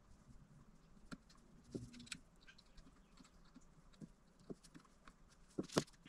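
Faint, scattered clicks and taps of small plastic wire connectors and cables being handled and plugged onto a laser engraver's controller board, with a louder double tap near the end.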